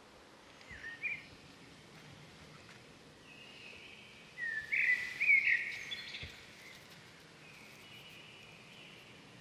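High chirping calls over a faint outdoor background: a short pair of chirps about a second in, then a louder run of rising and falling chirps around the middle.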